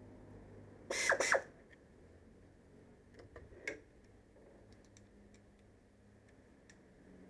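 Metal hand tools working on the AC compressor's refrigerant pipe fittings: a short loud metallic clatter about a second in, then a few lighter clicks and ticks as the fittings are tightened.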